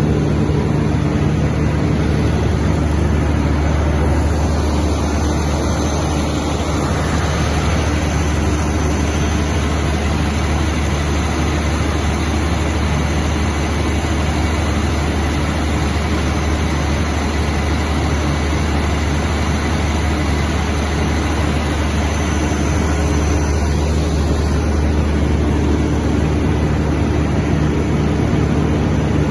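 200 kVA FG Wilson diesel generator set running steadily at constant speed, a loud even drone with a deep hum.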